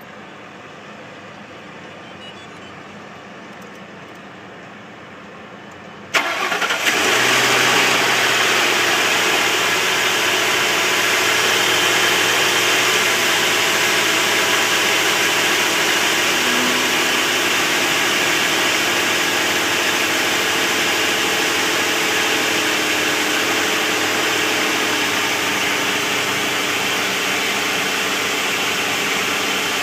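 Ford Crown Victoria V8 engine starting about six seconds in after a quiet stretch, then idling steadily with the knock that the owner hears on start-up.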